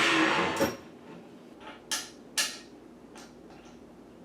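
Metal parts scraping and grinding for under a second, then three sharp clicks and knocks, as a portable bandsaw is worked into place on a table's mounting plate.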